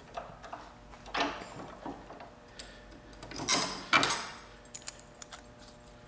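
Metal handling noise from a steel motorcycle gear shift lever being worked loose and taken out of a bench vise: a few short scrapes and clinks, the loudest two about three and a half and four seconds in, then a few small clicks.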